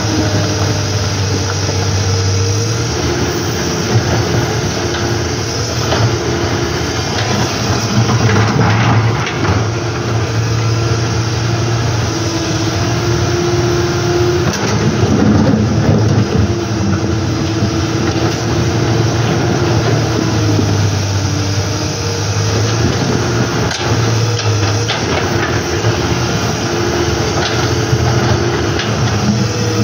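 Komatsu PC200 hydraulic excavator's diesel engine running, its note swelling and easing every few seconds as the arm digs and swings under load, over the steady rush of river water, with occasional knocks of rock.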